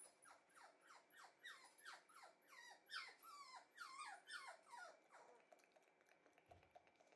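Shiba inu puppy whining: a quick run of high, thin whines, each falling in pitch, about three a second, which stops about five seconds in.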